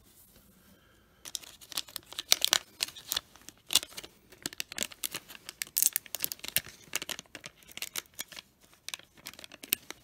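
Crinkling and tearing of a baseball card pack's wrapper being opened by hand: a dense run of sharp crackles that starts about a second in.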